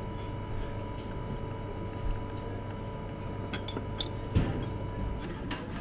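A metal spoon and a small ceramic chawanmushi cup clinking against dishes on a tray: a few light clicks and one sharper knock about four seconds in as the cup is set down, over a steady room hum.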